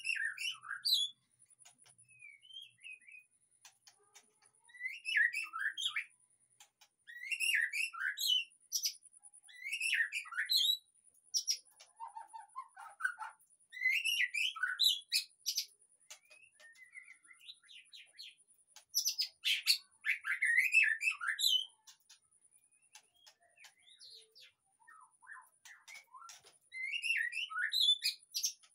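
White-rumped shama (murai batu) singing: bursts of varied, fast whistled and chattering phrases lasting a second or two, separated by short pauses. A faint steady high whine runs underneath.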